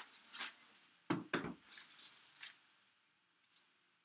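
Clear plastic wrap being pulled off a cardboard box: crinkling rustles in the first couple of seconds, with two soft knocks of the box against the table about a second in.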